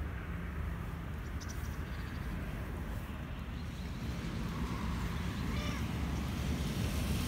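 Black-and-white cat meowing once, about five seconds in, a begging meow for food, over a steady low rumble.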